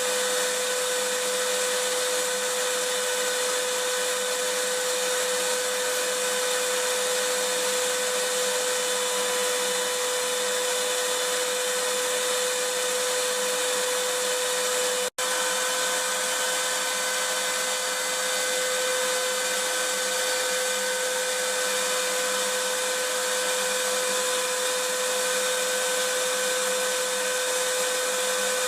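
Vacuum cleaner running steadily: an even rushing noise with a constant motor whine. It cuts out for an instant about halfway, then carries on unchanged.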